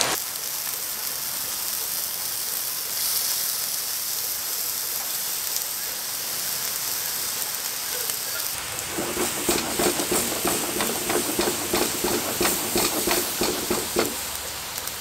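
Indian mackerel frying in a shallow metal pan, sizzling steadily. About nine seconds in it breaks into rapid crackling and popping, which dies back to the plain sizzle near the end.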